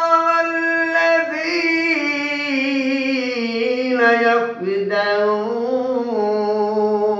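A man reciting the Quran in a melodic tajwid style, drawing out long held notes that step slowly down in pitch, with a short break about four and a half seconds in.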